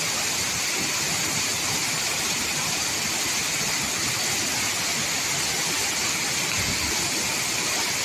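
Waterfall pouring into a plunge pool: a steady, unbroken rush of falling water.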